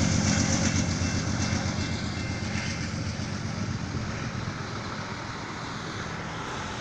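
BNSF freight train of tank cars rolling away, its steady rumble fading gradually, with a faint high steady tone in the first few seconds.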